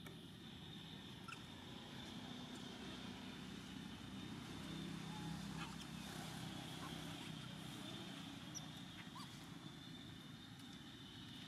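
Faint outdoor background: a steady low hum that swells a little midway, a thin steady high tone, and a few faint short chirps and ticks.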